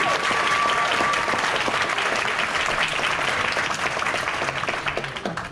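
Audience applauding, the clapping fading and stopping near the end.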